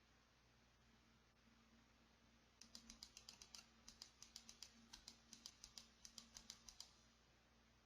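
A run of faint, quick clicks, several a second in short bursts, starting about two and a half seconds in and stopping about a second before the end, over a low steady hum.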